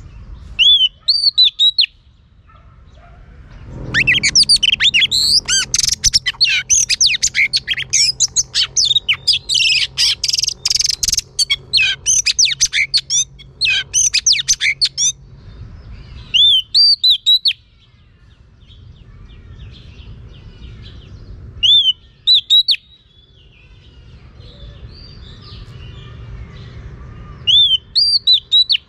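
Female oriental magpie-robin singing in quick whistled phrases. A short phrase comes about a second in, then a long, dense run of rapid rising and falling whistles for about ten seconds, then brief two- or three-note phrases every few seconds.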